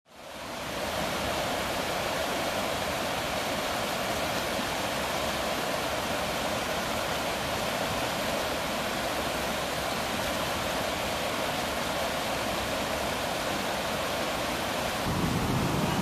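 Fast mountain stream water rushing over rocks and a small drop: a steady rush that fades in at the start and grows louder and deeper about fifteen seconds in.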